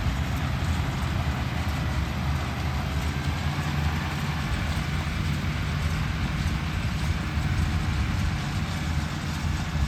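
Farm tractor engine running steadily, a low rumble.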